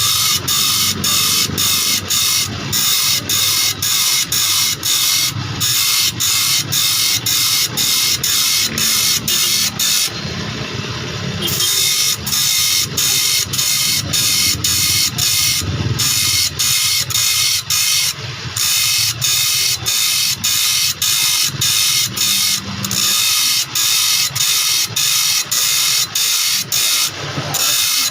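A saw-sharpening grinder working along a saw blade's teeth: a loud, hissing grind that pulses about three times a second, one stroke per tooth. It pauses briefly about ten seconds in.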